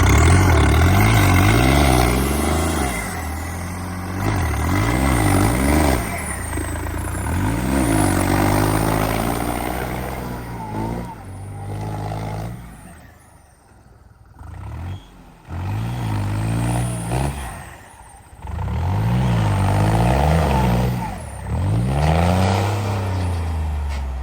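Tractor's diesel engine revving hard and easing off again and again, the pitch rising and falling every few seconds, as it works through deep mud.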